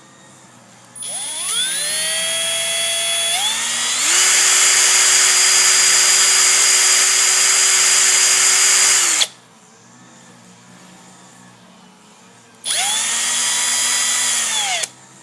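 Handheld electric drill running. Its motor winds up about a second in and holds at part speed, then steps up louder and faster about four seconds in before stopping suddenly. After a pause of a few seconds it runs again for about two seconds, winding up and back down.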